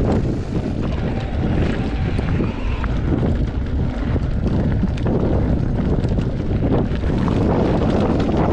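Wind buffeting the microphone: a steady, loud low rumble with small clicks and rattles scattered through it.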